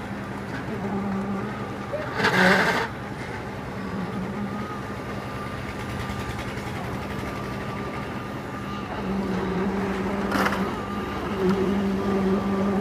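A heavy engine running at a steady speed, with a short hissing burst about two seconds in and another near ten seconds.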